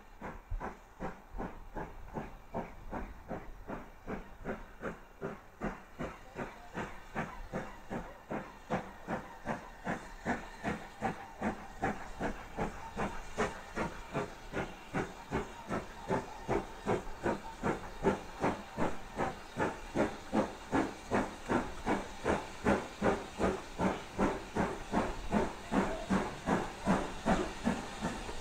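BR Standard Class 4MT tank steam locomotive working a passenger train under power, its exhaust beating in even chuffs about two a second with a hiss of steam. The beats grow steadily louder as the engine approaches.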